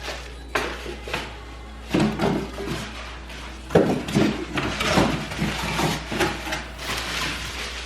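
A sewing machine and its packaging being handled during unboxing: irregular knocks, bumps and rustles, the sharpest a few seconds in, with background music underneath.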